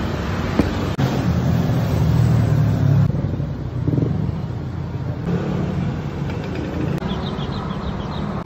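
Road traffic close by: motor vehicles running past on the street, loudest about one to three seconds in, then a steadier lower rumble.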